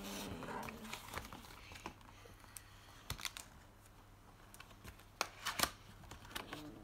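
Packaging of a colouring-book and marker set crinkling and tearing as it is opened by hand, with a few sharp crackles in the second half.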